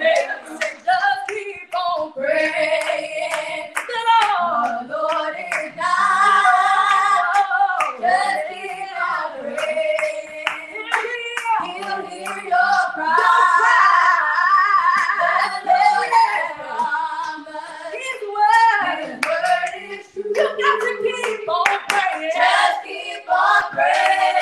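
A family group of young voices, girls and a boy, singing an unaccompanied gospel song in close harmony, with sharp hand claps keeping the beat throughout.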